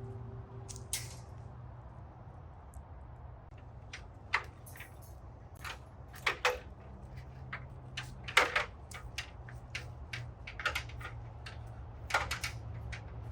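Irregular metallic clinks, knocks and rattles from metal fencing being handled and fastened, about a dozen sharp hits spaced unevenly, over a steady low hum.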